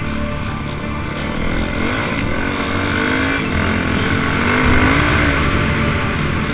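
Yamaha dirt bike's four-stroke single-cylinder engine running while riding, its pitch rising and falling twice as the throttle is worked, with wind rush on the helmet camera.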